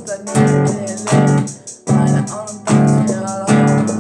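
Guitar music: chords strummed in a steady rhythm, a new strum about every 0.8 seconds.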